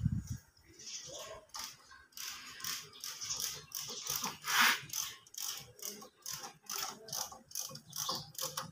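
Hand ratchet clicking in irregular runs as bolts on the underside of the engine are worked, with a louder scrape of metal about halfway through.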